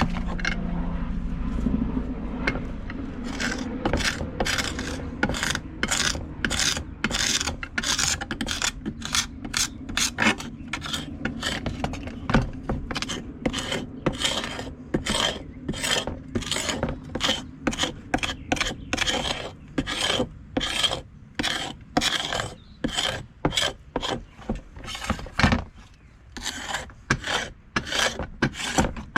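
Repeated hand-scraping strokes, about one and a half a second, as bubbled paint softened by paint stripper is scraped off an old tool.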